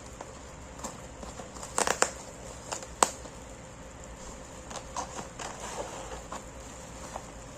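Packaging being handled and opened: bursts of crinkling and rustling, loudest just under two seconds in, a single sharp click about three seconds in, then softer scattered rustles.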